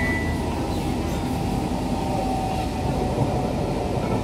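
Steady running noise of an SMRT C651 metro train heard inside the car at speed, with faint whining tones in the middle.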